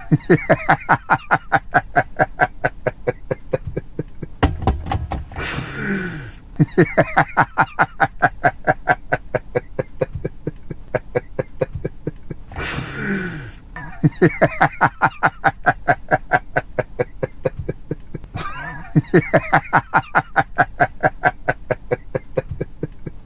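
A person laughing hard in long runs of rapid 'ha-ha-ha' pulses, about ten a second. Four runs are broken by gasping in-breaths.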